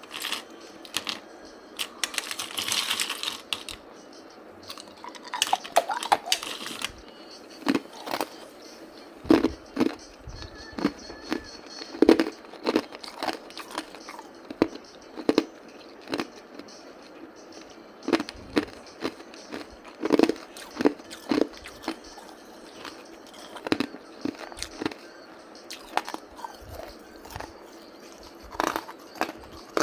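A person biting and chewing hard ice close to the microphone: irregular sharp crunches every half second to a second, with a longer grinding crunch a couple of seconds in and another around six seconds in.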